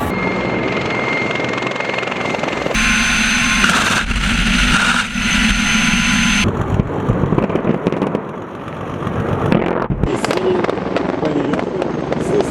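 Military helicopters running, in a run of cut shots that change abruptly several times, with a harsh hissing stretch of about three and a half seconds near the start.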